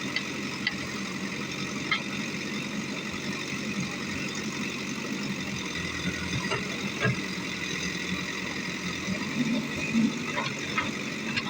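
JCB backhoe loader's diesel engine running steadily, with a few short clanks scattered through.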